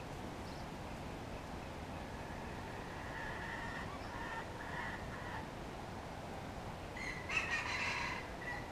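Wild rooster (red junglefowl) crowing: a faint, broken call in the middle, then a louder crow of about a second near the end.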